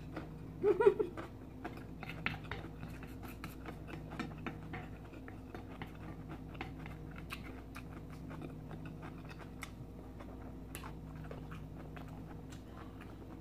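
Close-up chewing and mouth sounds of a person eating pancit bihon noodles, a run of small wet clicks. About a second in comes a short hummed "mm", the loudest sound, over a faint steady low hum.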